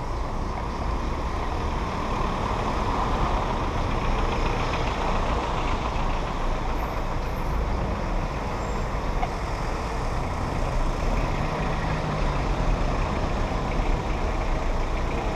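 Steady engine and road noise of a car moving slowly through city traffic.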